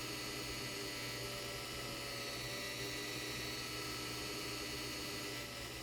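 3D-printed axial-flux brushless DC motor running under an Arduino controller, giving a steady electrical whine and hum with several tones at once. A lower tone drops out near the end.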